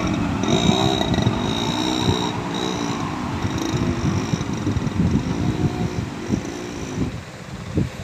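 Motor traffic passing close by: a truck's engine and motorcycles going past one after another, their engine notes repeatedly rising and falling. About seven seconds in it turns quieter, with a few short knocks.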